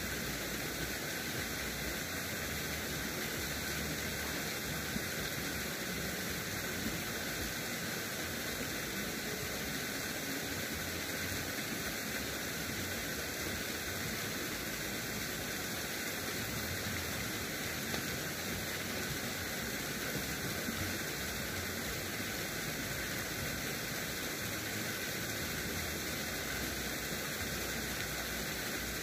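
A steady, even hiss that holds at a constant level, with no distinct events.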